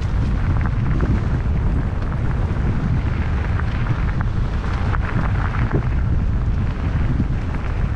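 Wind buffeting a helmet- or bike-mounted action camera's microphone during a mountain-bike ride: a steady low rumble, with tyre noise and scattered small rattles and ticks.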